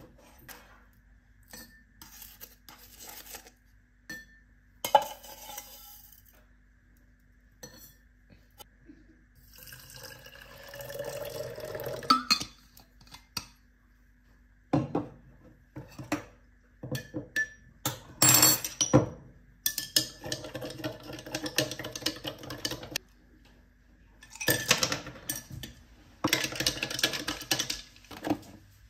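Coffee being made in a glass jar on a stone countertop: the jar is set down with sharp clinks, coffee is poured in for a couple of seconds, then a utensil stirs and clinks against the glass in quick runs through the second half.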